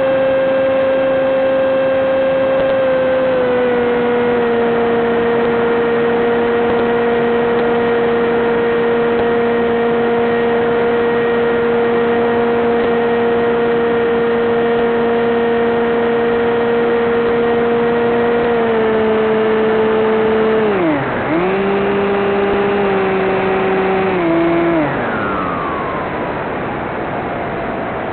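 Electric motor and propeller of a Teksumo flying wing, heard through the FPV link's onboard microphone: a steady pitched drone that steps down slightly with throttle. About three-quarters through the pitch dips sharply and recovers, then a little later it glides down and fades as the throttle is cut, leaving wind rush.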